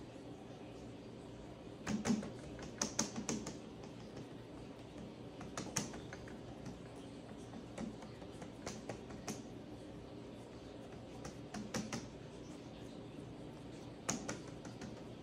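Hands pressing crumbly tart dough into a fluted tart pan: irregular light taps and clicks, coming in small clusters.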